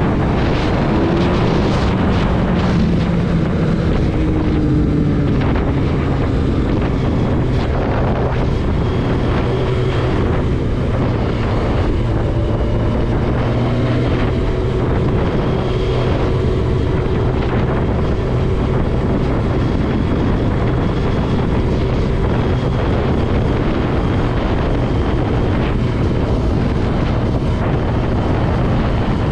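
Car driving along at a steady level: continuous engine and road noise with a low hum.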